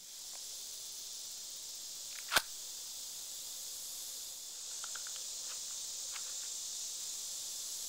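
A knife being drawn from a leather quick-draw belt sheath: one sharp click about two and a half seconds in, then a few faint ticks around five seconds, over a steady high hiss.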